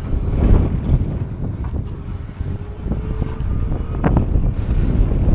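Wind buffeting the camera's microphone while riding along a road, a loud uneven low rumble, with a few short clicks and rattles, the sharpest about four seconds in.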